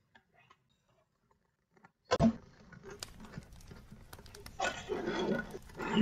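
A short stretch of near silence, then a sharp knock about two seconds in, followed by irregular clattering and light clinks of metal tabletop-fountain parts (square metal trays and the base) being handled and fitted together, busier and louder near the end.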